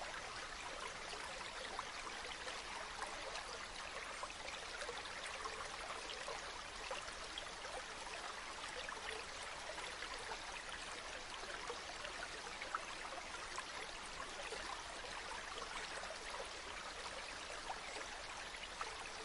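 Steady running water: a stream or small cascade flowing and trickling, with many small splashes and gurgles and no change in flow.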